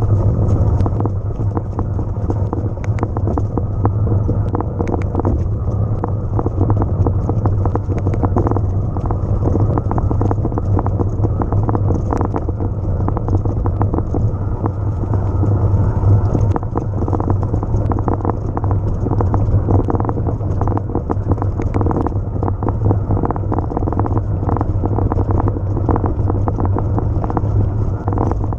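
Riding noise of an electric mountain bike on rough ground: a steady low rumble of wind on the microphone and tyre noise, with frequent quick rattles and knocks from the bike going over bumps.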